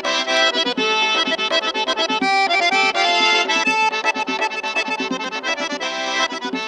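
Instrumental music, with no singing: a quick melody over sustained low chords.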